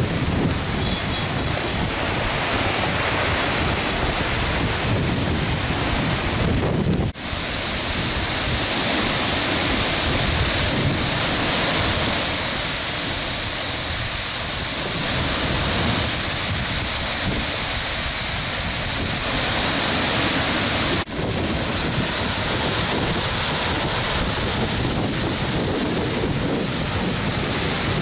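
Storm surf breaking and washing over a pebble beach, with wind buffeting the microphone. The sound cuts out for a moment twice.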